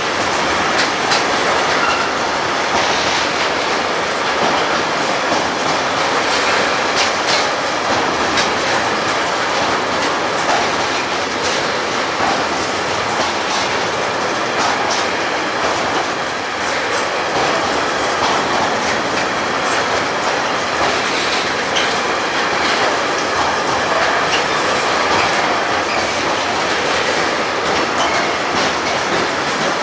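Freight train wagons rolling past at close range, the wheels clacking steadily over the rail joints with some wheel squeal.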